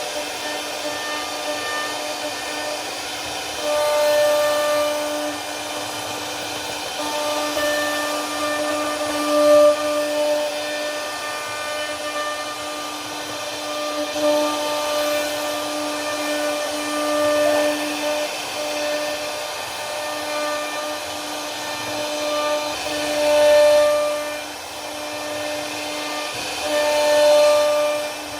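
CNC router spindle running with a steady whine while carving wood, its tone swelling louder several times as the bit cuts.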